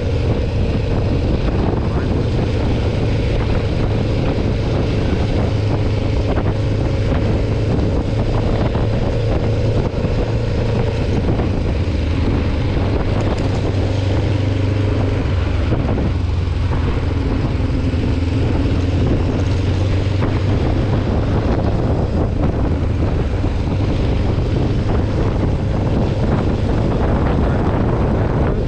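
Kawasaki Ninja 500R's parallel-twin engine running steadily while the bike is ridden, over a steady rushing noise.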